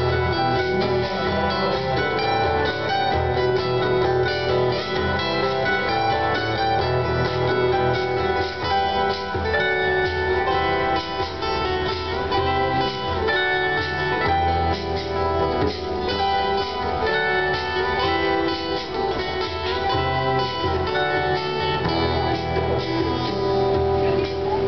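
Instrumental music without vocals, playing steadily.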